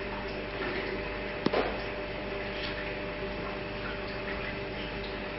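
Steady room hum and hiss, with a single sharp click about a second and a half in.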